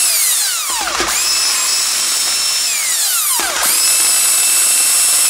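Cordless impact driver spinning out crankshaft main bearing cap bolts: a high motor whine that winds down in pitch each time the trigger is let go, starting up again about a second in and again a little past halfway.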